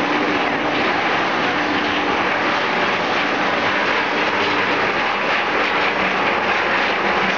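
Steady machinery noise from a running dog food processing line: a rotating stainless steel seasoning drum turning, with kibble tumbling and rattling inside it, over a faint low hum.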